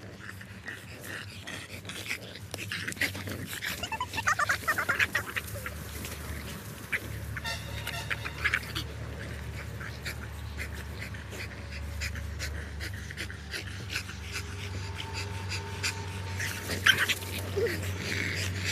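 French bulldogs tussling over a ball on sand and dry leaves: dog noises mixed with scuffling, loudest about four to five seconds in and again briefly near the end.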